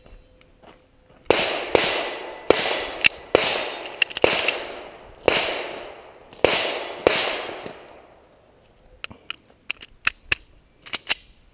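Springfield Armory XDs .45 ACP compact pistol firing a string of about nine shots over some six seconds, each shot echoing. A few fainter sharp clicks follow near the end.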